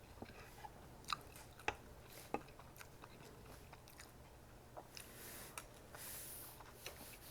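Close-miked chewing, quiet overall: soft wet mouth clicks and smacks, a few sharper ones between about one and two and a half seconds in. Near the end comes a faint airy hiss.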